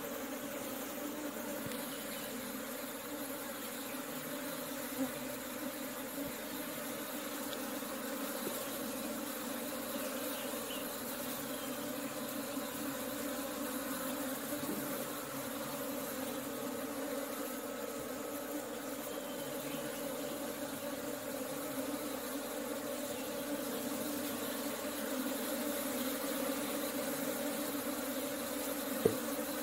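Steady buzzing hum of a large mass of Kerala-strain Indian honeybees clustered at a hive entrance. A single brief tap sounds near the end.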